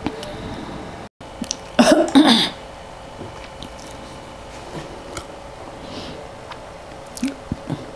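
A person clears her throat once, about two seconds in, with a short, loud rasp. Under it runs a steady low hum, with a few faint clicks.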